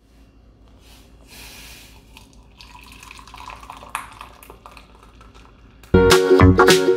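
Milky tea poured through a metal tea strainer into a porcelain cup, liquid splashing and trickling quietly, with a light clink about four seconds in. Loud music cuts in near the end.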